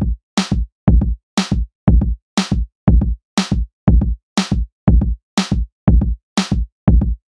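Electronic background music: a steady drum-machine beat, about two hits a second, every other hit brighter and snappier. The beat starts right at the beginning after a moment of silence.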